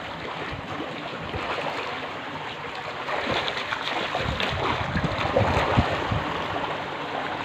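Water splashing and sloshing as a swimmer ducks under and moves through the pool, over a steady rushing hiss. The splashes come irregularly and are busiest in the middle.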